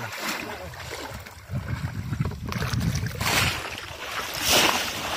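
Shallow water splashing and sloshing as hands and wading legs churn it around bamboo fish traps, with louder splashes from about three seconds in.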